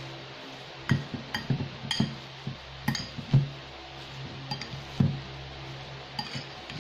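Metal fork clinking and scraping against a ceramic bowl while stirring and mashing a tuna and cracker mixture: about a dozen irregular light clinks.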